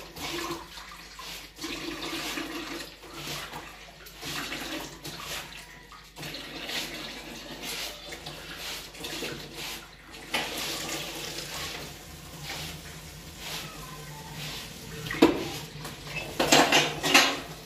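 Water running and splashing, as in washing at a tap or basin. A sharp knock comes about fifteen seconds in, and a loud burst of clattering follows near the end.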